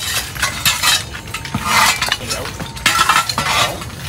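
Tools striking and smashing the lid of a grave: irregular, rapid clinking and cracking blows, several a second.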